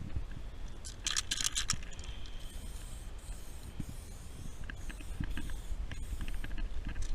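Aerosol spray can rattling in short bursts of rapid clicks, about a second in and again at the end, with a few lighter ticks between.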